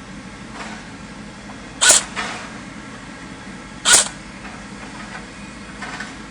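Two single shots from a Cyma AK47 electric airsoft rifle, about two seconds apart, each a short, sharp burst.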